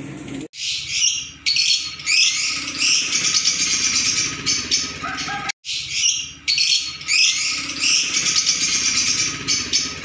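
A flock of small caged birds chirping and chattering, high-pitched and busy, with many calls overlapping. It breaks off for an instant about half a second in and again around the middle, and the same stretch of chatter seems to play twice.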